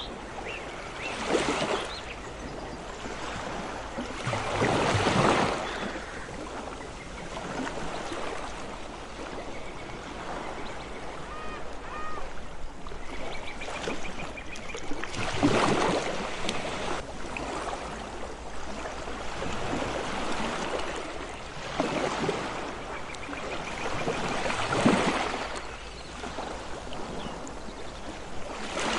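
Ocean waves breaking and washing in, a louder surge every few seconds over a steady hiss of surf.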